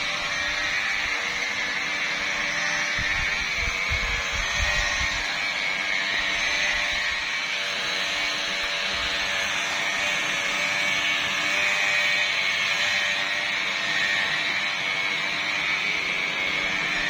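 Electric machine polisher running steadily with a high whine while it buffs compound into a car's painted bonnet during the first cutting step of paint correction. A few low thumps come about three to five seconds in.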